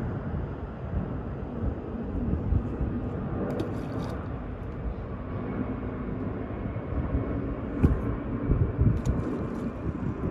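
Steady low outdoor rumble of ambient background noise, with a few faint ticks.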